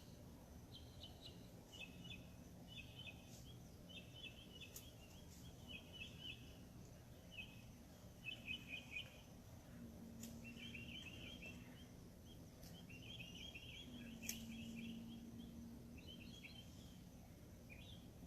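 Faint birdsong: small birds chirping in short, rapid bursts of repeated high notes, one burst after another. A low hum comes and goes twice, and there are a few light clicks.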